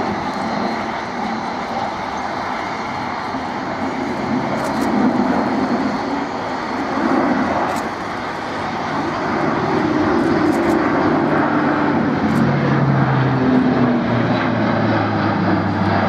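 Airbus A400M Atlas's four Europrop TP400-D6 turboprops driving contra-rotating propellers, a steady propeller drone through a steep banking turn. From about ten seconds in, the hum glides down in pitch and grows a little louder.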